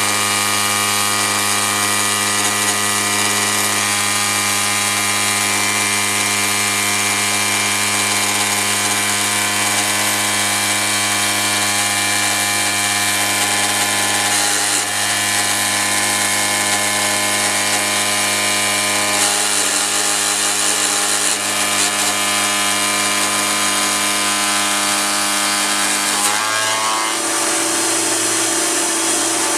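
CNC milling machine's 2-flute 1-inch insert cutter, spinning at 7000 RPM, taking a heavy roughing cut through 6061 aluminium plate: a loud, steady whine with a high hiss. About 26 seconds in the pitch changes and settles on a new steady tone.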